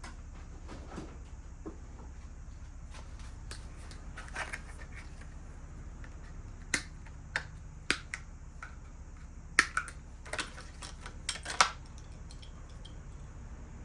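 Scattered sharp clicks and light knocks of BMX stem and handlebar parts being handled and set down, about eight of them, most in the second half.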